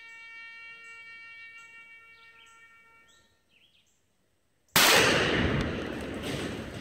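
Black-powder charge going off: one sudden, very loud blast about five seconds in, dying away over the next two seconds. Before it, a steady held tone fades out, followed by a moment of near silence.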